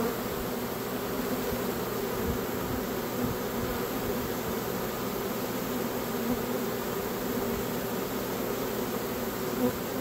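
Large swarm of honey bees buzzing at close range: a steady, even hum.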